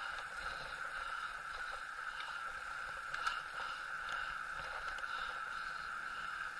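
Steady hiss of a bicycle rolling along an asphalt lane, from its tyres and drivetrain, with a few faint clicks and rattles.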